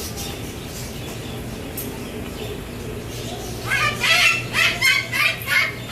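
A bird calling loudly over and over: a quick run of short, harsh squawks, two to three a second, starting a little over halfway through, over steady background noise.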